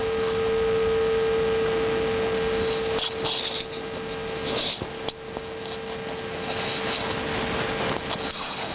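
A meditation bell's single tone rings on, then fades about three seconds in and lingers faintly. Under it come rustling of clothing and small handling movements, with a sharp click about five seconds in.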